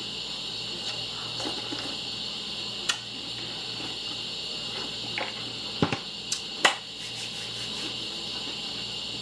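Spoon clinking against a cereal bowl and cereal being eaten: a few sharp clicks, one about three seconds in and a cluster near the end, over a steady high hiss.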